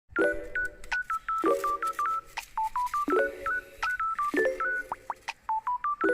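Background music: a bouncy looping tune of short, bright beeping notes over a low chord that repeats about every second and a half.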